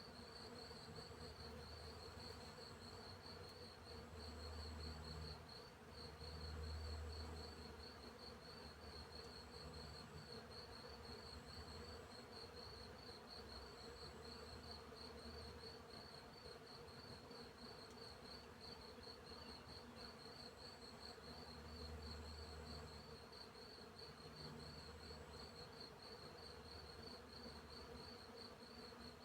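Faint, steady chorus of crickets chirping in rapid even pulses, with a higher insect trill starting and stopping. Bees buzz past with a low hum several times, loudest a few seconds in and again about two-thirds of the way through.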